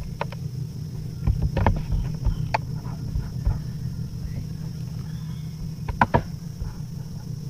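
Steady low electrical hum on the microphone, with a few scattered short clicks and knocks; a sharp pair of clicks about six seconds in.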